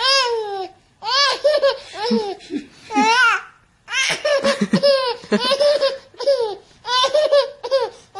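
A baby laughing in repeated runs of high-pitched giggles, breaking off briefly about a second in and again about three and a half seconds in.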